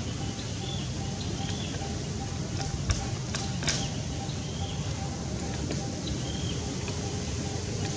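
Outdoor ambience: a steady low rumble, with a short high chirp repeated about once a second and two sharp clicks a little before the middle.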